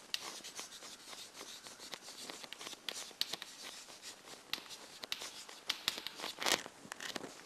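Chalk writing on a chalkboard: a quick, irregular run of faint scratches and taps as words are written, with one sharper tap a little before the end.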